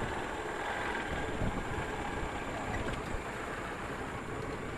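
Yamaha SZ single-cylinder motorcycle running steadily on the move, its engine mixed with steady wind and road noise.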